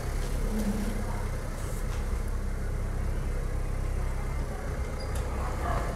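Car engine idling with a steady low rumble, heard from inside the cabin.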